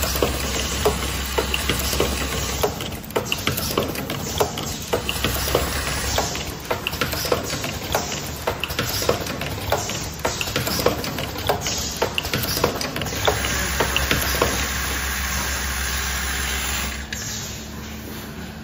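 Automatic metal-zipper slider mounting and cutting machine running: a stream of sharp mechanical clicks and knocks, about one or two a second, from its slider-feeding, clamping and cutting strokes, over a steady whir and hum. The clicking stops near the end, leaving only the steady noise.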